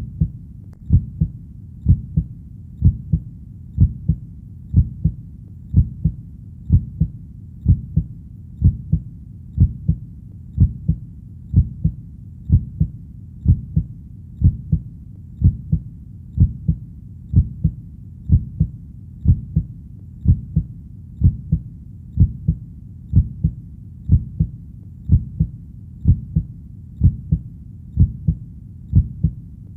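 Heartbeat, a steady lub-dub double thump about once a second, deep and low, over a faint low hum.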